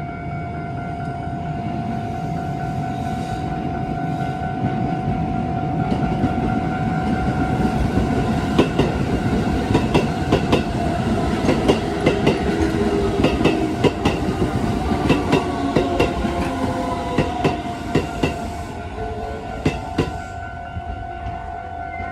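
Japanese level-crossing alarm ringing steadily while an electric commuter train passes over the crossing. The train's rumble builds, and its wheels clack over the rail joints in quick clusters through the middle of the passage.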